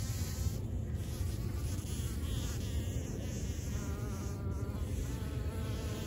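Bumble bees buzzing at partridge pea flowers: a steady low hum, with a higher-pitched buzz coming in briefly about four seconds in. This is the sonication of buzz pollination, in which the bees vibrate pollen out of the flowers' anthers.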